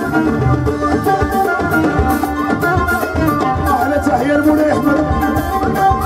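Live Moroccan chaabi band music: a violin melody with sliding notes over keyboard, bass guitar and a steady hand-drum rhythm.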